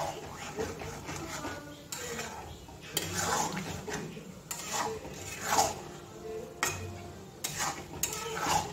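Metal spatula scraping and clinking against a metal kadai as a thick curry is stirred, with a stroke every second or so.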